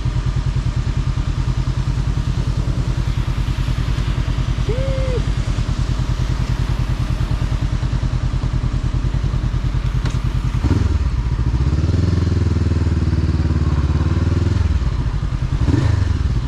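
Motorcycle engine running steadily while riding; a little after ten seconds the engine note changes and rises slightly, holds for a few seconds, then drops back near the end.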